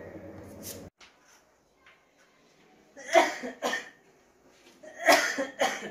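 A man coughing in two bouts: two coughs about three seconds in, then three more about two seconds later.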